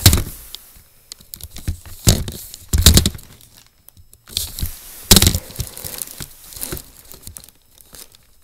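Handling noise of a phone camera being moved and set in place: rubbing and crinkling against the microphone, with sharp bumps right at the start, around two and three seconds in, and about five seconds in.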